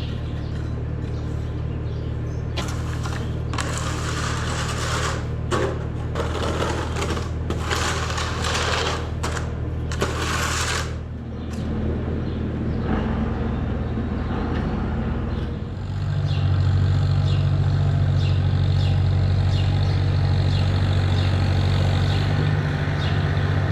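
Engine of farm machinery running steadily, with a series of loud rushing, scraping noises over it in the first half. About two-thirds of the way in, the engine speeds up and runs louder until the end.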